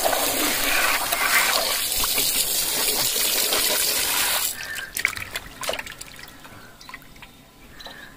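Tap water runs in a steady stream into a stainless steel bowl of beef chunks while the meat is rubbed clean by hand. About four and a half seconds in the stream stops, leaving softer splashes and sloshing as the meat is worked in the water.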